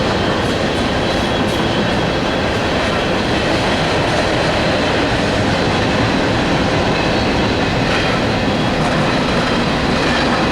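Long freight train rolling past, a steady rumble of steel wheels on rail with light clicks from the passing cars.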